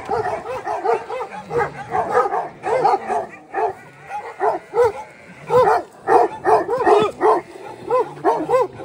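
Dog barking repeatedly in quick runs, a few barks a second.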